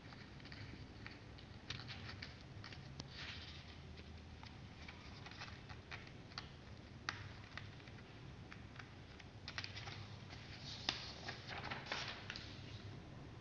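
Sheets of printer paper being handled and shifted between the hands: irregular light rustles and crinkles, busiest near the end.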